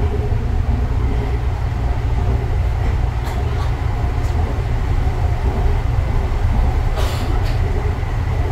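Interior running noise of a Yongin EverLine light-rail car (Bombardier ART 200) travelling at speed: a steady low rumble. A brief rushing hiss comes about seven seconds in.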